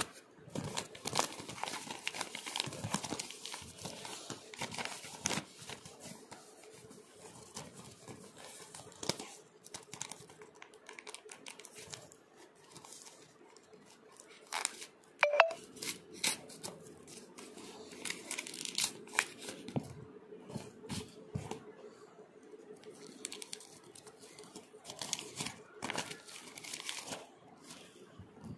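Small handmade paper bags being torn open and crinkled by hand, in several bursts of tearing and rustling paper.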